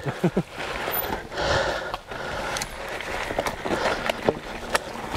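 Mountain bike rolling over a rough dirt trail: steady tyre noise with irregular knocks and rattles from the bike over bumps.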